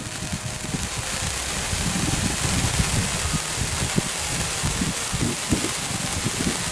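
Hand-held sparkler burning: a steady fizzing hiss with irregular low crackling, and a couple of sharper crackles about four and five and a half seconds in.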